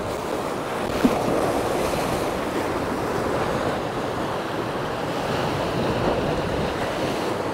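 Sea waves washing and breaking against a rocky shore, with wind buffeting the microphone. A short knock about a second in.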